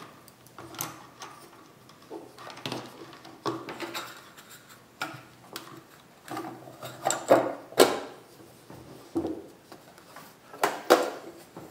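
Handling noises of a box being reassembled: wires rustling and an aluminum back plate rubbing and knocking as it is laid onto the wooden box, then clunks as the box is lifted and turned over. Short knocks and scrapes come scattered throughout, the sharpest about eight seconds in.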